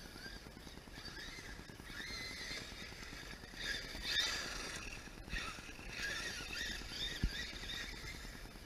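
Electric RC truck's motor whining, its pitch wavering up and down in short glides as the throttle is worked, with a single sharp knock near the end.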